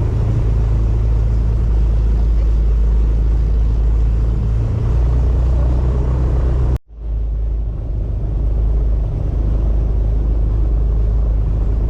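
Airboat engine and propeller running, a loud steady rumble, with a sudden break about seven seconds in before it picks up again.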